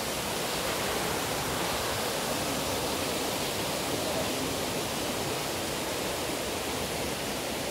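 Steady rush of water pouring through a stone sluice channel.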